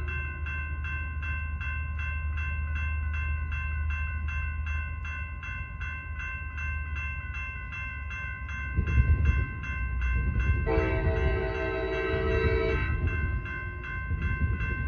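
Railroad crossing bell ringing at a steady rate while an approaching Amtrak train rumbles, louder from about nine seconds in. The train sounds its multi-note horn for about two seconds near eleven seconds in, a crossing warning.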